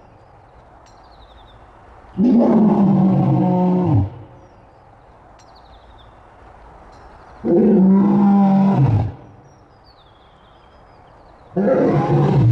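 Lion roars pitched down to stand in for a giant Pleistocene cave lion: three long, deep roars about five seconds apart, each sliding down in pitch as it ends, the last still going at the end. Between them, faint high falling chirps sit in a quiet background.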